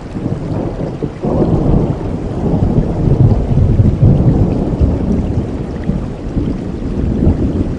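Thunder rolling over steady rain: a low rumble swells suddenly about a second in, is loudest a few seconds later, then slowly dies away under the rain's hiss.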